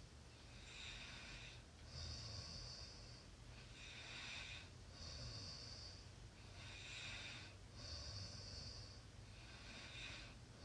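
A sleeping person snoring softly. Each cycle is a raspy breath in followed by a noisy breath out with a low rumble, about one cycle every three seconds, four times in all. The sound is faint.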